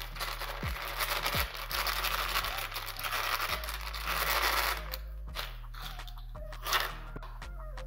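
Background music with low sustained notes and falling bass glides, over about five seconds of dense crinkling, rustling handling noise while spice powder is spooned onto the chicken. A short sharp noise comes a little before the end.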